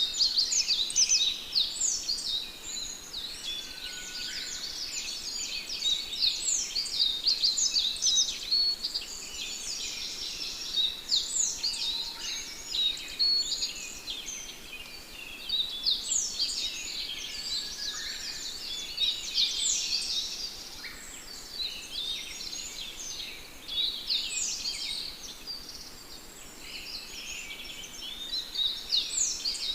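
A flock of sparrows chirping: many short, overlapping high chirps in a dense, continuous chorus.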